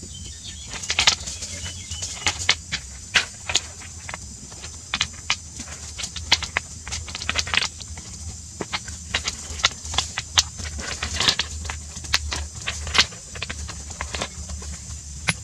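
Smooth stones knocking and clacking against each other as they are handled and set down one by one along a pond's edge: irregular sharp clicks, a few each second, over a steady low hum.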